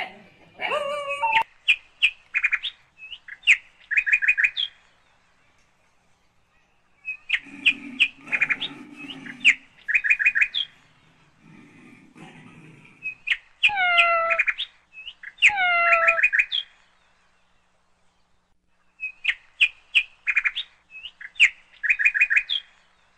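Birds chirping in quick runs of high, rapid chirps, coming in three spells with quiet gaps between them. Two falling squeal-like calls come about two seconds apart near the middle.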